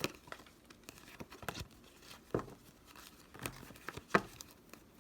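Tarot deck being shuffled and handled by hand: irregular soft rustles and slaps of card stock, with louder snaps about two and a half, three and a half and four seconds in.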